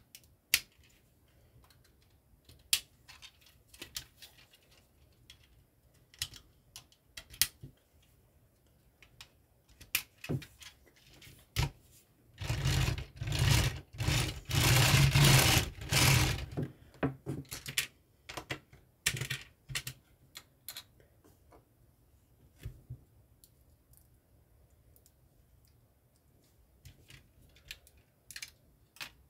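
Plastic LEGO pieces clicking and tapping as a small LEGO car model is handled, with a few seconds of continuous rattling midway as the car is pushed across a studded LEGO baseplate.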